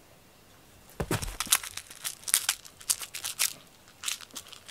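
A cat pouncing onto a blanket with a soft thump about a second in, then quick, scratchy rustling strokes as it scrabbles at the blanket after a wand toy.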